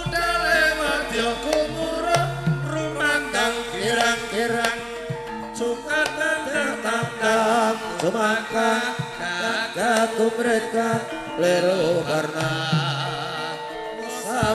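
Javanese gamelan ensemble playing without a break: kendang hand drums beat out quick patterns over ringing bronze metallophones and gongs, with a wavering melody line above.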